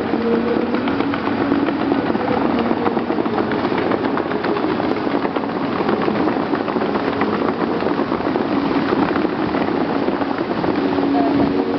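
Steady rushing hiss of the Bellagio fountain's water jets spraying high and falling back onto the lake. Faint music sits underneath near the start and again near the end.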